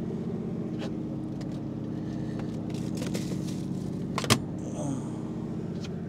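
A fishing boat's engine running at a steady low hum, with a few small clicks and one sharp knock about four seconds in from tackle being handled on deck.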